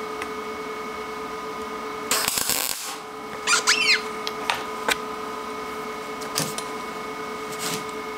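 A short weld tack on the end of a hinge, where the barrel meets the pin, fusing the pin to the barrel: one burst of arc welding of under a second, about two seconds in. Then a brief squeak and a few light metal clicks as the hinge is handled.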